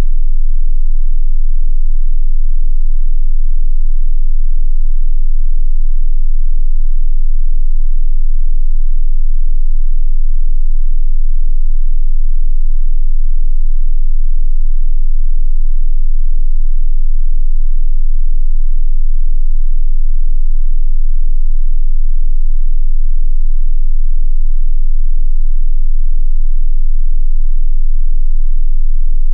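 Steady, loud 18.98 Hz sine tone, an infrasonic test tone pitched below the range of hearing: the so-called ghost pitch said to be tied to paranormal sightings.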